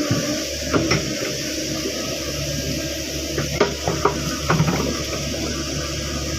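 Caterpillar 307.5 mini excavator running steadily, with irregular metallic clanks and knocks from the working machine, loudest about a second in and again around the middle.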